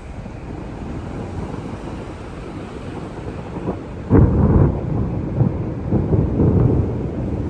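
Thunder from a lightning strike. A low rumble builds, breaks into a loud clap about four seconds in, then rolls on with a few more swells.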